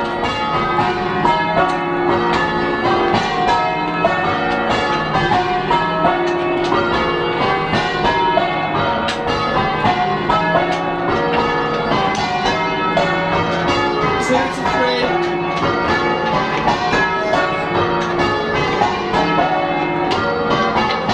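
Change ringing on a heavy ring of six church bells, all cast in the 1600s, giving a clonky, old-fashioned sound. The bells strike one after another in a continuous even stream, their ringing tones overlapping.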